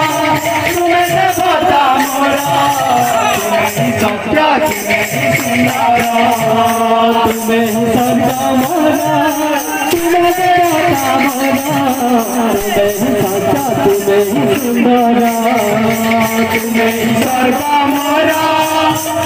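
Loud kirtan music without singing: an instrumental passage where a melody line is held and bends over steady drumming and jingling percussion.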